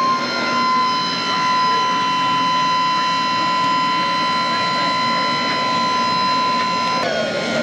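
A steady whine of several sustained high tones over the general noise of a busy exhibition hall. The strongest tone drops out near the end.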